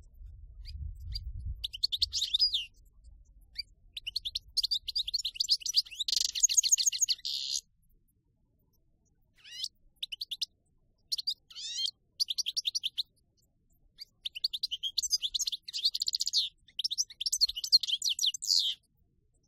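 European goldfinch (jilguero) singing in the pure wild-type 'campero' style. It gives phrases of rapid, high twittering and trills that start and stop, with short pauses between them.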